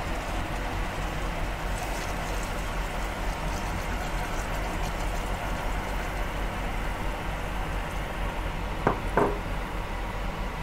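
Pot of squash pieces in oil sizzling steadily on a gas burner as hot water is poured in from a glass. Two short clicks come about nine seconds in.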